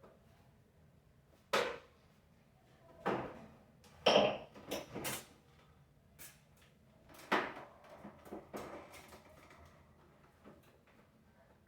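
Vacuum cleaner being worked on by hand: irregular knocks and clicks of its parts being handled and taken apart, the loudest cluster about four seconds in.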